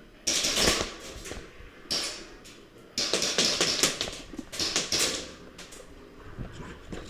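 Airsoft guns firing full-auto, about four rapid bursts of clicks in quick succession.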